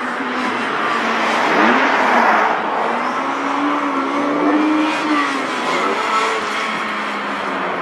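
Honda T360 kei truck's small four-cylinder engine revving through a gymkhana run: it rises in pitch about a second and a half in, holds, then eases off about five seconds in. There is a swell of tyre scrub about two seconds in.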